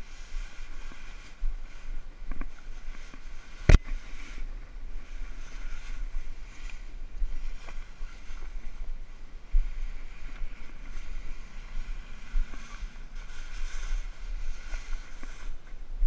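Fabric boat cover rustling as it is pulled and bunched up by hand, with wind buffeting the microphone. A single sharp click about four seconds in, and a softer knock near the middle.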